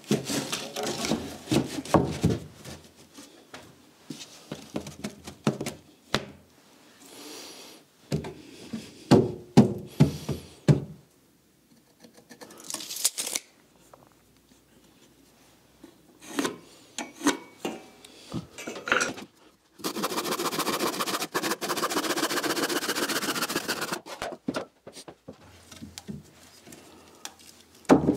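Carpentry work: wooden studs and planks knocking and clattering as they are handled and set in place, with about four seconds of a tool running steadily in the second half.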